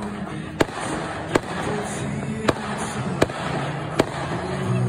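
Aerial fireworks going off: six sharp bangs, roughly one a second, over a steady background din with music.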